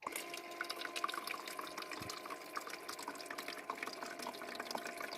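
Portable countertop ice maker filling: its small water pump runs with a steady hum while water trickles and drips into the machine's top tray.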